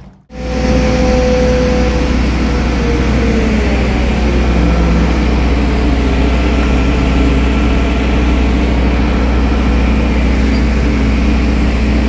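Kato mobile crane's diesel engine running steadily up close, a loud even drone with a strong low hum that cuts in abruptly.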